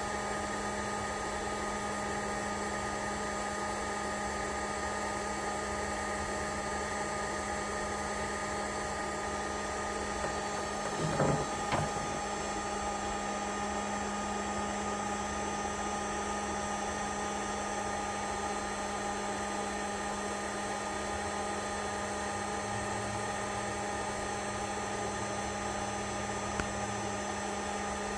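Heat gun running steadily, a constant motor hum and whine, shrinking heat-shrink tubing over a crimped cable connector. A couple of brief knocks come about eleven seconds in and a small tick near the end.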